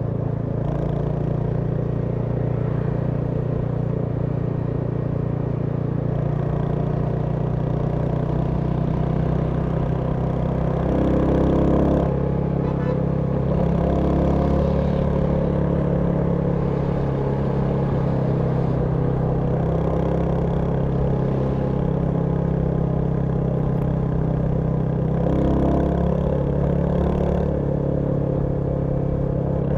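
Royal Enfield Hunter 350's single-cylinder engine running while the motorcycle is ridden, with a steady engine note that swells and shifts in pitch briefly twice.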